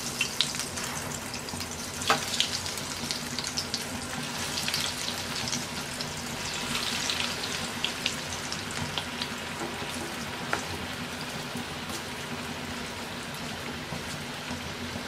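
Breadcrumb-coated cutlets frying in hot oil in a pan: a steady sizzle with sharp crackles now and then, the loudest about two seconds in.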